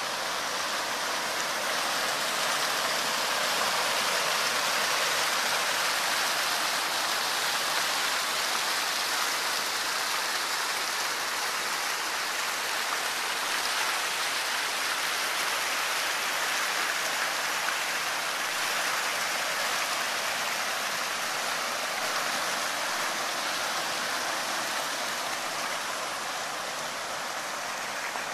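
Water rushing and splashing steadily over a small concrete weir.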